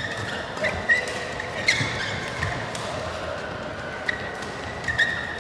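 Badminton rackets striking shuttlecocks in a fast net drill: a string of sharp, irregularly spaced hits, with court shoes squeaking on the floor between them.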